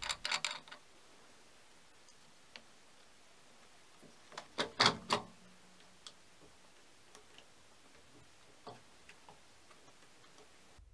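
Parts of a mini lathe's poly-V belt drive being fitted by hand: a few faint clicks and light knocks of metal parts, with a short cluster of sharper clicks about four to five seconds in.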